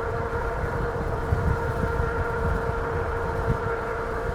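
Electric bike hub motor whining at a steady pitch while riding, with wind rumbling on the microphone.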